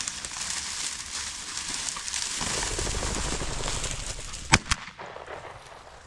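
Two shotgun shots fired a fraction of a second apart, about four and a half seconds in, the first the louder. A steady rustling noise runs before them.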